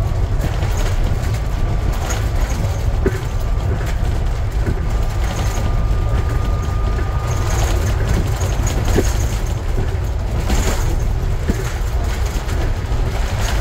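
Scania N250UD double-decker bus with its five-cylinder diesel driving along, a steady deep engine and road rumble. Occasional short knocks and rattles come through, and a faint whine rises slightly over the first half.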